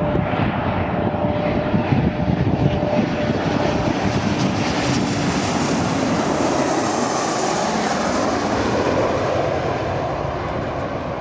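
Airliner passing low overhead on final approach to land: loud rushing engine noise, with a whine that drops in pitch as it goes by and eases slightly near the end.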